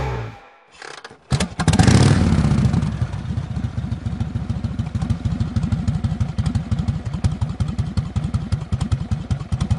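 Motorcycle engine starting about a second in with a brief rev, then idling with a fast, steady beat.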